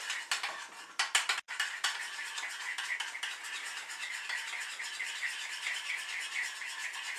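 A spoon stirring a thick homemade barbecue sauce of ketchup, mustard, vinegar and sugar in a ceramic bowl, scraping against the bowl in quick, regular strokes.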